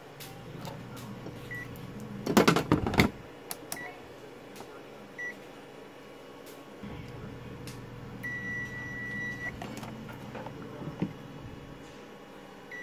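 A ZOTEK ZT102 digital multimeter's continuity beeper chirps several times, with one longer beep of about a second, as its probes touch the board; the tone means near-zero resistance across the probes, a short. A burst of clattering clicks from handling the meter and its probes is the loudest sound, a couple of seconds in.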